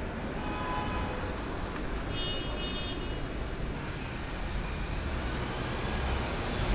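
City street traffic noise: a steady rumble of passing cars, with a brief high-pitched squeal about two seconds in.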